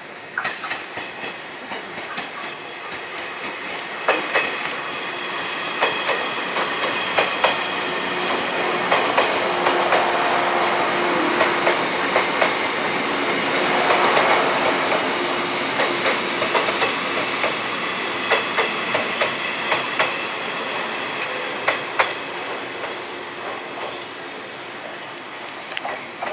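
JR East 185 series electric train running past on the rails, its wheels clicking over rail joints. The sound swells to a peak about halfway through and then fades away.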